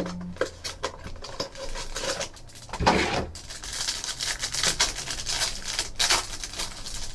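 Clear plastic wrapper of a 2013 Panini Absolute Football card pack crinkling and rustling as the pack is opened and the cards are handled, with a louder crackle about three seconds in.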